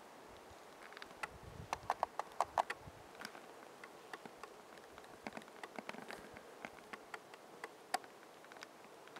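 A run of short, sharp clicks and ticks over a faint steady hiss, thickest and loudest about two seconds in, then scattered.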